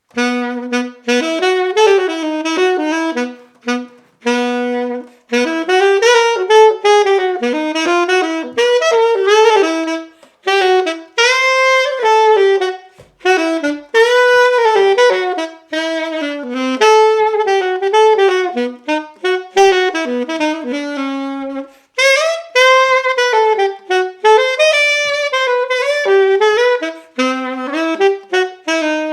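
Yamaha alto saxophone played solo, a melodic passage of phrases with short breaks between them, starting abruptly after silence.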